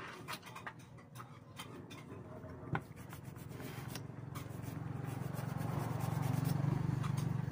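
Toothbrush bristles scrubbing the trigger switch of an impact drill, cleaning the switch contacts of a drill that has no power. Light clicks of parts being handled come in the first few seconds, with one sharper click, and a low hum grows louder through the second half.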